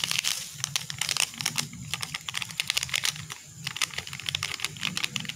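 Plastic seasoning sachet crinkling and crackling in the hand as it is squeezed and shaken to empty the powder out, a string of irregular sharp crackles with a couple of short pauses.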